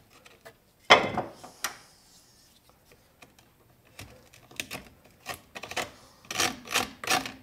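Knife scraping at the crumbled pressed-wood corner of a drawer. There is one sharp stroke about a second in, then a run of short scraping strokes that grows denser over the last three seconds.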